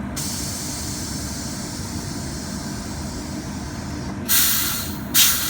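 Sydney C-set electric train with a steady low rumble and a faint hiss of air. Loud sudden hisses of compressed air come from its pneumatic system, once about four seconds in and again about a second later.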